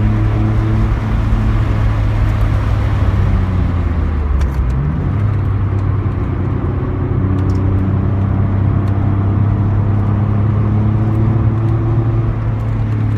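Car engine and road noise heard from inside the cabin of a car being driven at track pace, the engine holding a steady note. About four seconds in, the engine note drops briefly, then climbs again.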